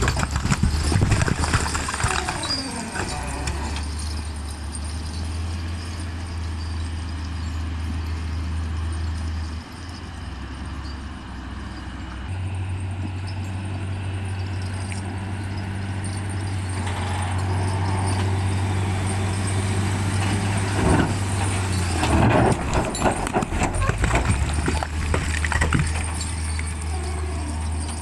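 Heavy diesel earthmoving machine running with a steady low drone that shifts a little in pitch about ten and twelve seconds in. Bursts of clattering metal knocks and rattles come near the start and again over several seconds late on.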